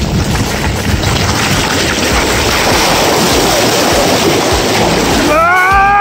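Mountain bike rattling fast over a loose gravel track, with wind buffeting the handlebar-mounted camera's microphone, and the wheels running into shallow stream water near the end. About five seconds in, the rumble drops away under a short voiced call that rises and then holds for about a second.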